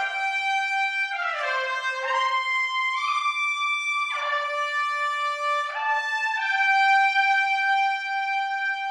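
Sampled trumpet ensemble (orchestral virtual instrument) playing a slow legato line of long held notes, sliding smoothly from one pitch to the next. The last note is held steadily for the final couple of seconds.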